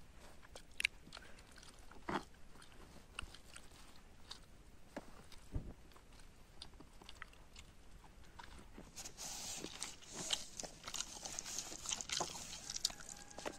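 Close-miked sounds of eating by hand: scattered wet clicks of chewing, and fingers kneading rice and curry on a dry palm-sheath plate. The sound becomes a denser rustle with quick clicks from about two-thirds of the way in.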